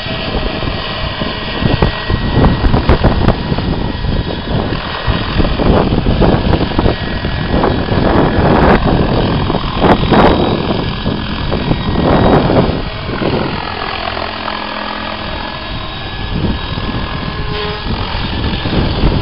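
Radio-controlled model helicopter's engine and rotor running loud as it hovers and flies low, weighed down with extra load in a heavy-lift test. The sound drops somewhat for a few seconds past the middle, then picks up again.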